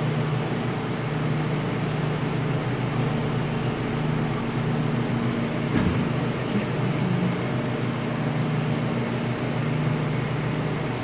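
Steady mechanical hum in the background, with a single knock about six seconds in as a gloved hand works at the stainless-steel band saw's wheel.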